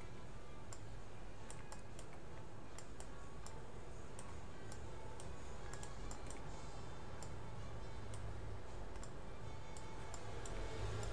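Scattered, irregular clicks of a computer mouse, about one a second, over a steady low background hum.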